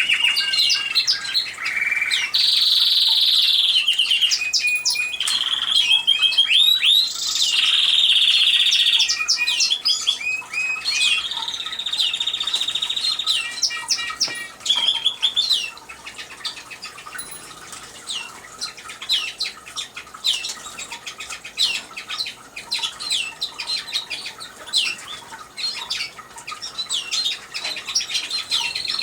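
Several canaries singing: rapid rolling trills held on one pitch, mixed with quick rising and falling chirps. The song is dense and loud for the first half, then thins to scattered chirps.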